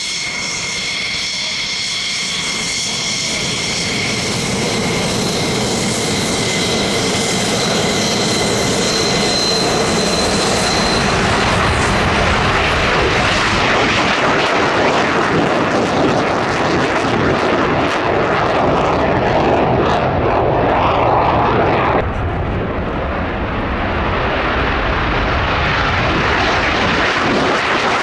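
Hellenic Air Force F-4E Phantom's twin J79 turbojets. At first there is a high whine of several steady tones over the engine roar. Over about ten seconds the tones give way to a loud, broad jet roar that grows louder, with a sudden change in the sound about 22 seconds in.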